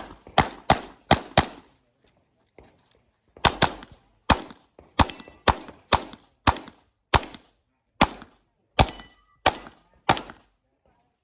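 Rapid handgun fire in a practical-shooting stage: four fast shots, a pause of about two seconds, then a long string of shots, mostly in quick pairs about half a second apart. Some of the later shots are followed by a short metallic ringing.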